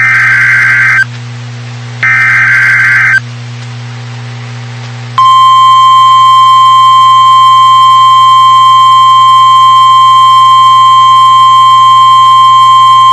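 Emergency Alert System SAME header: two short, harsh digital data bursts about a second apart. About two seconds later comes the long, steady single-pitch 1050 Hz warning alarm tone of NOAA Weather Radio, which announces a tornado warning.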